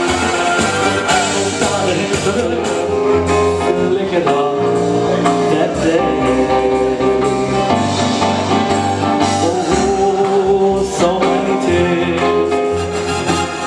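A man singing into a microphone over a band's keyboard and drum accompaniment, amplified through PA speakers.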